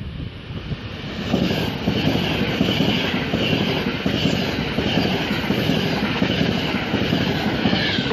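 ETR 485 Pendolino electric tilting train running through a station at speed without stopping: a steady rush and rumble of wheels on the rails that swells about a second in and drops off suddenly near the end as the last car clears.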